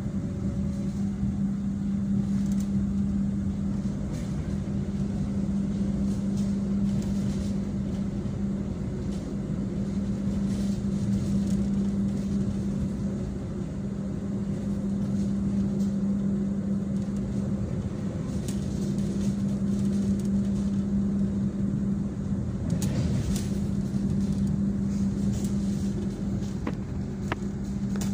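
Passenger train carriage interior while running slowly: a steady low hum over a continuous rumble, with a few light knocks near the end.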